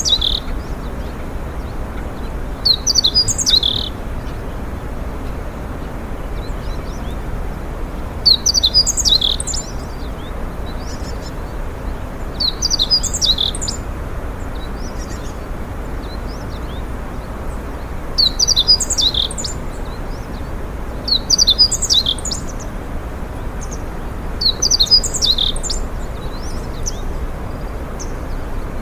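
A songbird singing a short, high phrase six times, one every three to five seconds, over steady background noise.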